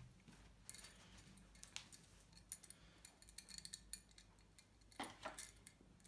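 Faint, scattered metallic clicks and light rattles from a removed lever door handle and screwdriver being handled, with a slightly louder clatter about five seconds in.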